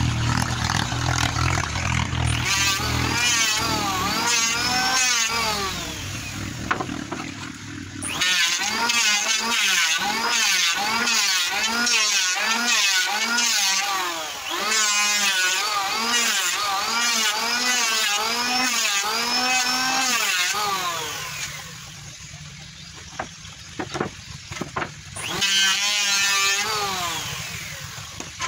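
Handheld electric planer shaving a wooden plank, its motor whine dipping and rising in pitch with each back-and-forth stroke as the blade bites and lifts. It stops briefly about eight seconds in, goes quieter with a few knocks later on, then runs once more before fading.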